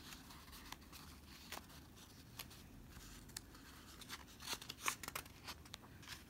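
Faint rustling and light clicks of a picture book's paper pages being handled and turned, with a cluster of louder rustles about four and a half seconds in.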